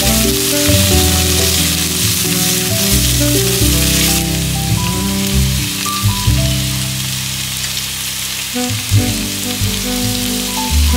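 Diced onions sizzling in oil in a frying pan, the sizzle easing about four seconds in as the blended paste goes into the pan, under soft background music.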